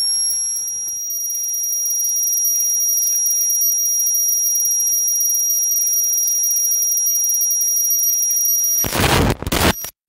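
Public-address feedback: a steady high-pitched whistle held for about nine seconds. It ends in a brief loud burst of noise, and the sound cuts off just before the end.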